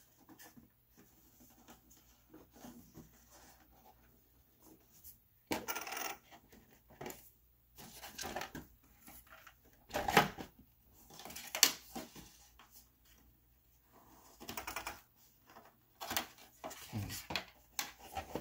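Irregular plastic clicks, knocks and rustles as hands work the body shell off an Arrma Mojave 6S radio-control truck, with a few sharper clicks louder than the rest.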